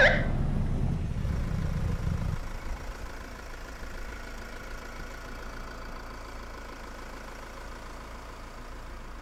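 A police siren's rising whoop cuts off right at the start. Then a Citroën minivan's engine runs with a low rumble that drops to a quieter steady idle about two seconds in, as the car comes to a stop.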